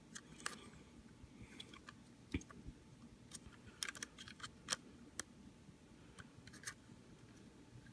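Plastic parts of a transforming robot toy figure clicking and ticking as hinged panels are folded and pressed into place: faint, irregular clicks with a cluster of them around the middle.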